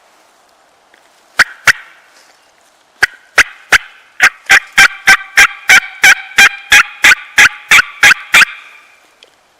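Hand-operated turkey call worked by a hunter: two sharp yelps, then a steady run of about seventeen loud yelps at roughly three a second, calling to a distant tom to draw a gobble.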